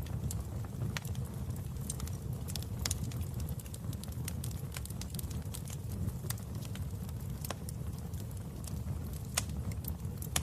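Wood fire burning in a fireplace: a steady low rumble with frequent sharp, irregular crackles and pops from the burning logs.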